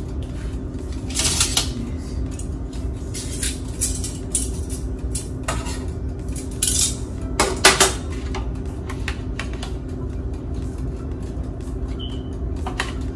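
A utensil knocking and scraping against the metal air fryer basket as chicken pieces are turned, in irregular clatters with the loudest pair about two thirds of the way through. A steady low hum runs underneath.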